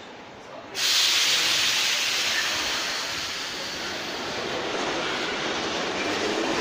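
Metro train at the platform: a sudden loud hiss of air about a second in, then steady rolling rail noise from the moving carriages, with a rumble growing near the end.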